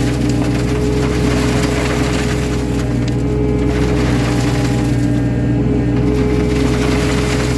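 Excavator's diesel engine running steadily, with continuous gritty rattling and crunching of soil and stones being screened.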